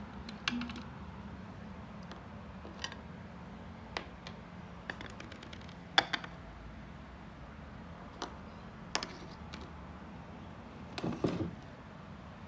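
Scattered light clicks and taps of plastic vacuum-cleaner parts being handled during disassembly, the loudest about six seconds in, with a quick run of clicks near the end.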